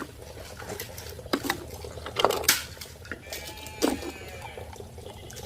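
Muddy toy vehicles being washed: water splashing and trickling, with several short knocks and splashes at uneven intervals.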